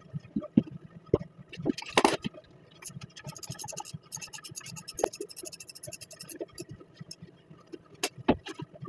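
Hand tools on metal: a ratchet wrench clicking rapidly for about three seconds in the middle, among scattered metal clinks and sharp knocks, the loudest about two seconds in.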